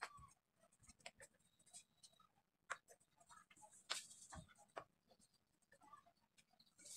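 Faint, scattered taps and scratches of fingers and raw chicken feet rubbing through flour against a ceramic plate.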